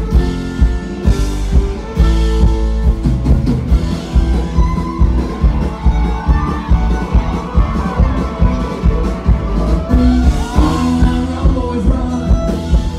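Live band music led by a fiddle solo, the bowed fiddle playing a melody with slides between notes over a steady drum beat.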